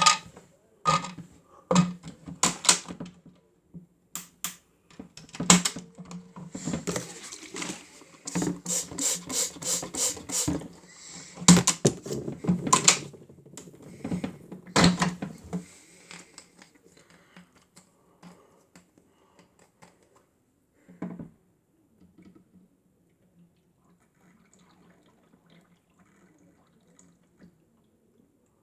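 Plastic clicks and knocks from handling a Miele W1 toy washing machine, including a quick run of even clicks, over a faint steady low hum. It then goes much quieter, with one more knock about two-thirds of the way through.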